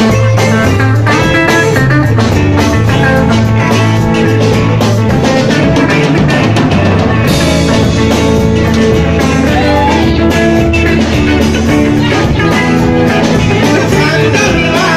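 Live band playing loud dance music: guitar over bass guitar and a drum kit keeping a steady beat.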